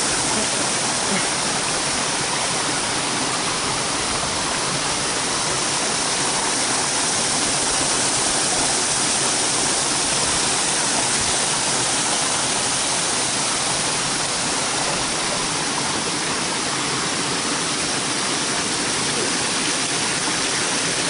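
Mountain stream cascading over rocks and small waterfalls: a steady, even rushing of water.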